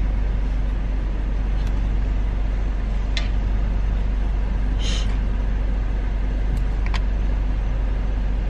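Steady car-cabin noise: a constant low rumble of the engine and road heard from inside the car, with a few faint clicks and one short higher burst about five seconds in.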